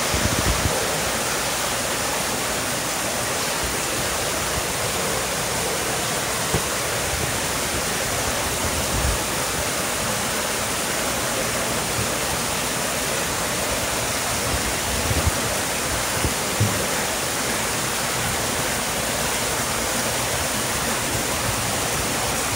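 Steady, unbroken rush of running water, with a few soft low bumps along the way.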